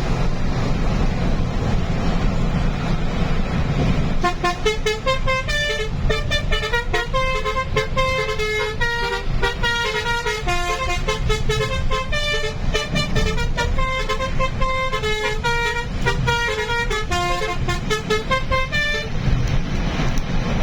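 Telolet basuri musical horn playing a quick tune of short notes. It starts about four seconds in and stops shortly before the end, over steady engine and road noise from the moving truck.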